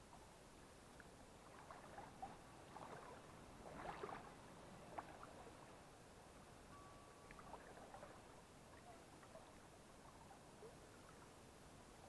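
Faint sloshing and small splashes of someone wading through a shallow stream, clustered about two to five seconds in, over quiet running water.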